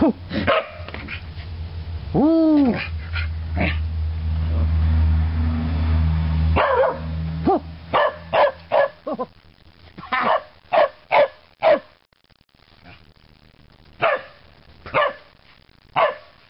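Corgis barking at play: short sharp barks, with a rising-and-falling yelp about two seconds in, a quick run of about nine barks in the middle, and three spaced barks near the end. A low steady rumble runs under the first few seconds and stops suddenly.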